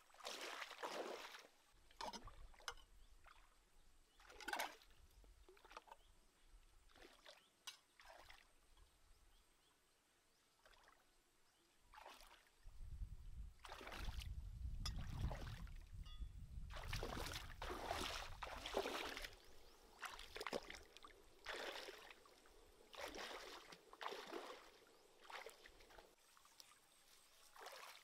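Bare feet wading through a shallow, rocky stream, stepping and splashing in the water in a string of irregular splashes. A low rumble joins in for a few seconds just past the middle.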